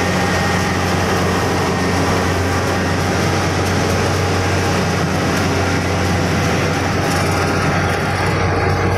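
Kubota DC-70 Plus rice combine harvester running steadily at work: a constant diesel engine hum with the clatter and hiss of the cutting and threshing machinery, heard from the operator's seat. The higher hiss thins out about seven seconds in.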